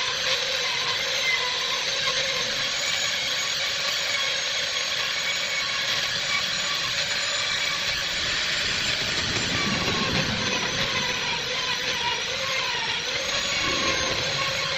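Handheld rotary tool with a carving bit grinding out the inside of a wooden vase's mouth: a steady high motor whine over a grinding rasp, its pitch wavering now and then as the bit bites into the wood.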